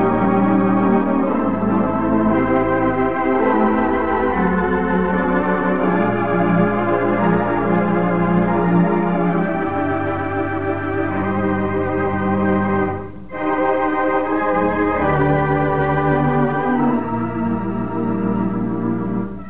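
Organ music playing slow sustained chords over held bass notes, with a brief break about two-thirds of the way through.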